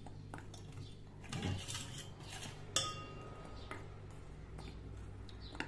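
Metal spoon scraping and stirring dry flour in a glass bowl. About three seconds in, the spoon clinks sharply against the glass and it rings briefly.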